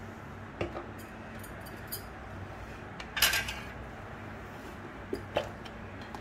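A few light clinks and knocks of metal kitchen utensils, with one short scrape about three seconds in, over a faint steady hum.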